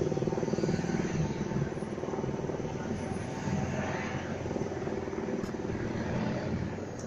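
Helicopter rotor beating steadily overhead, a fast, even chopping that eases off slightly near the end.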